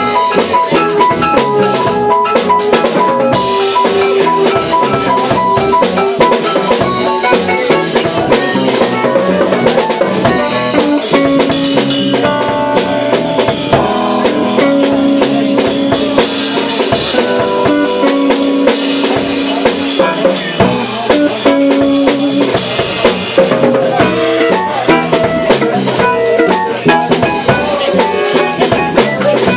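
Live band playing an instrumental tune: stage piano, full drum kit and electric guitars, with steady drumming under sustained keyboard and guitar notes.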